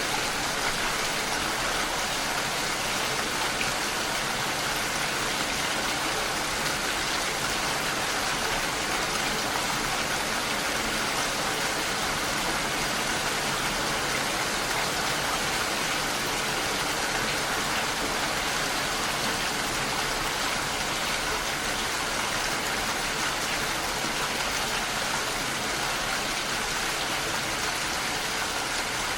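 Steady rain falling, an even wash of drops that holds at one level without let-up.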